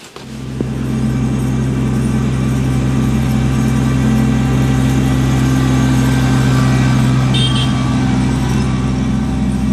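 Kubota LX2610 compact tractor's three-cylinder diesel engine running at a steady speed as the tractor drives, a steady drone that fades up over the first second.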